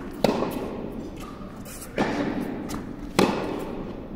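Tennis balls being struck by a racket and bouncing on an indoor court: three sharp pops, each followed by the echo of a large hall.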